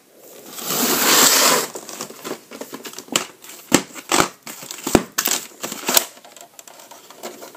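Close handling noise: a loud rustle for about a second near the start, then a scattering of sharp plastic clicks and taps as a clamshell VHS case is picked up, moved and opened.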